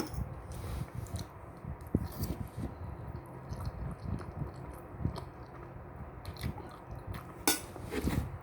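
Close-up eating sounds: noodles being chewed with wet smacking and slurping, with scattered small clicks throughout and a sharper click near the end.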